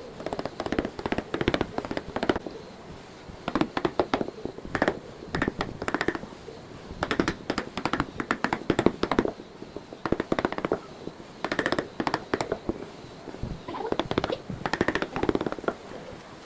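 Hand tools working wood: bursts of rapid sharp taps and scrapes, each lasting about a second, with short pauses between.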